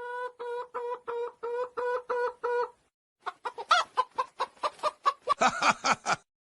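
Chicken clucking sound effect: a held, pitched call that breaks into about five even clucks a second, then after a short pause a fast, irregular run of clucks that cuts off abruptly near the end.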